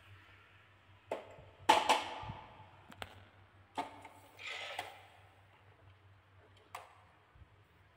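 Plastic toy dump truck being handled as its bed is tipped up: a handful of light plastic clicks and knocks, the loudest about two seconds in, and a brief rustle around four and a half seconds, over a faint low hum.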